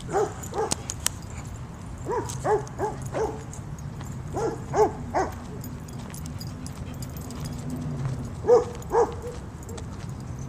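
A dog barking in short bursts of two to four barks, with pauses between the bursts.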